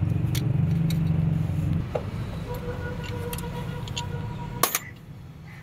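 A vehicle engine running steadily, which stops or fades about two seconds in. Near the end comes a sharp metallic clink of a spanner on the timing-belt tensioner bolt.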